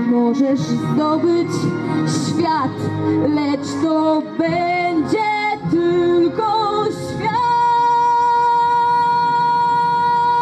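Music with a woman singing a melody that slides and wavers between notes, settling about seven seconds in on one long held note.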